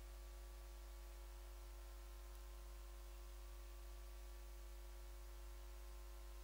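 Near silence: room tone with a steady low hum and a faint even hiss.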